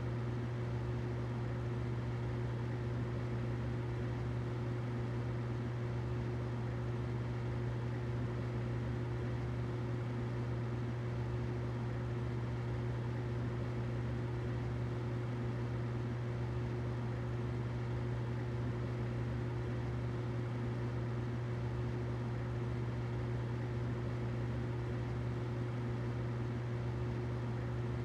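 Humidifier running: a steady low hum with an even hiss of air over it, unchanging throughout.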